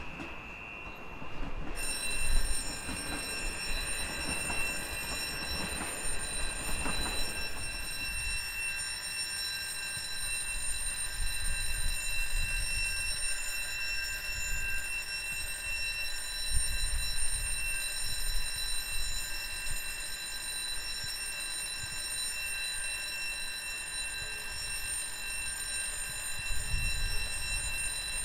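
Electric train at a station platform: a steady high electrical whine made of several pitches, over a low rumble. For the first several seconds a louder rolling noise is heard, and it dies away about eight seconds in.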